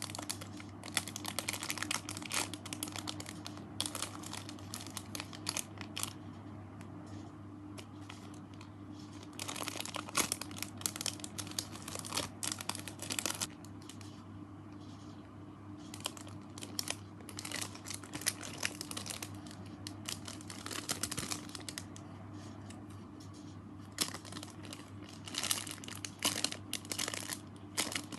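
Squishy toys being handled: rapid crinkling and crackling in clusters, broken by quieter pauses, over a steady low hum.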